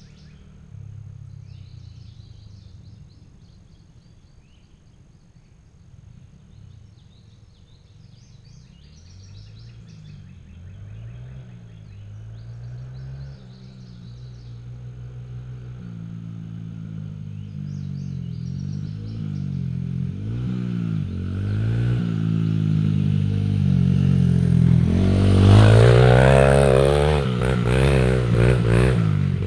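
Honda CRF100F dirt bike's single-cylinder four-stroke engine revving up and dropping back through gear changes as it approaches, starting faint and getting steadily louder until it is loud close by near the end.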